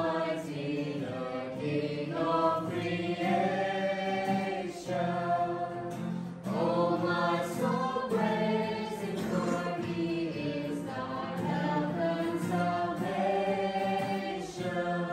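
A small group of men and women singing a hymn together in unison, with long held notes.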